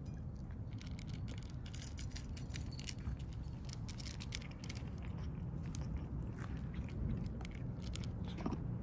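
Cats chewing food: a quick, irregular run of crisp crunching clicks, thickest through the first half, over a steady low background rumble.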